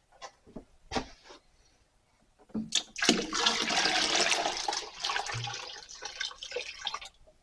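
About two gallons of water poured into a pot of grain mash: a few knocks from handling the container, then a steady splashing pour of about four seconds that tapers off near the end.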